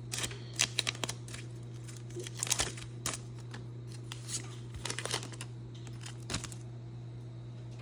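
Foil wrapper of a Pokémon trading-card booster pack being torn open and crinkled in several short crackling bursts, over a steady low hum.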